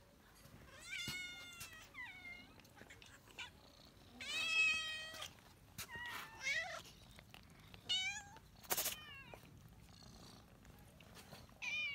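Domestic cats meowing repeatedly, about six separate calls, the longest and loudest about four seconds in, as they beg to be fed. A short sharp knock or rustle comes near the end.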